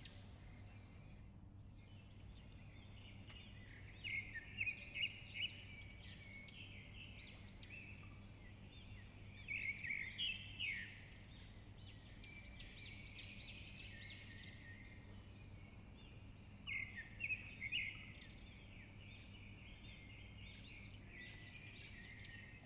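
Small birds chirping, several bouts of quick, high chirps with short pauses between, over a faint steady low hum.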